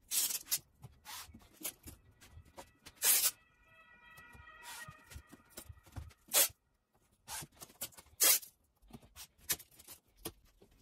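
Masking tape being pulled off the roll and torn, in a series of short, irregular rips.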